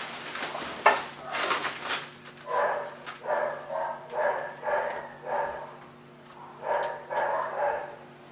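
A dog barking repeatedly in short runs of barks, with a pause about six seconds in.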